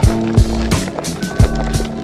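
Lo-fi hip-hop background music: a kick-drum beat at uneven spacing under held melodic notes.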